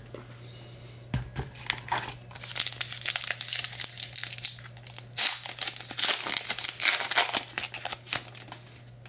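Crinkling and tearing of a trading-card pack wrapper as it is ripped open, a dense run of irregular crackles that starts about a second in and dies down shortly before the end.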